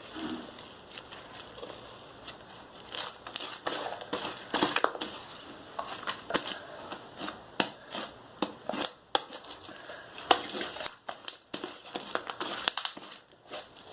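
Slime full of polystyrene beads being stirred and squished in a small pot: an uneven run of sticky crackles and sharp little clicks.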